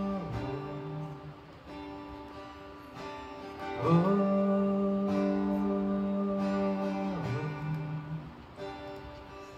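Slow worship music: acoustic guitar playing softly under a wordless held note that scoops up about four seconds in, holds steady for about three seconds, then slides down and away.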